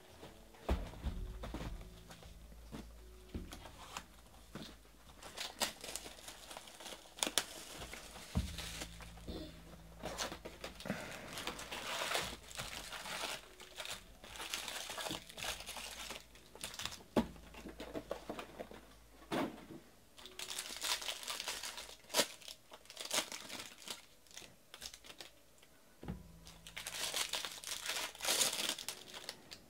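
Cardboard card box and packs handled, with clicks and knocks as the box is opened and packs are pulled out, then a foil Bowman baseball card pack crinkled and torn open in the hands, loudest near the end.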